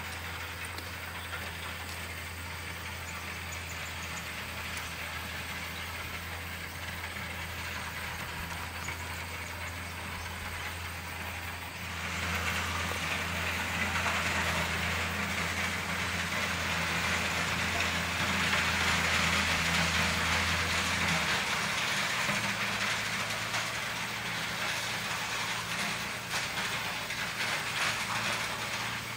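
Diesel engine of a rail track maintenance machine running steadily at work on the ballast. About twelve seconds in, a louder rushing, gritty noise joins it. A little past two-thirds of the way through, the engine's low note shifts to a slightly higher one.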